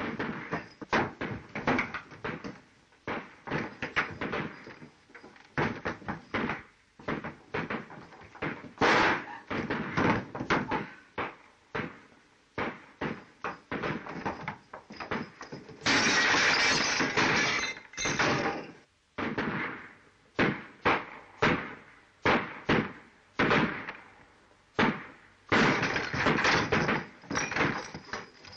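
A fistfight with many irregular thuds, scuffles and crashes against wood and furniture, and a long loud smashing crash of breaking glass about sixteen seconds in.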